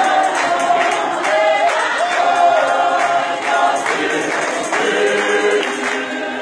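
Choir singing a Sesotho gospel song in many voices, with hand claps sounding through it.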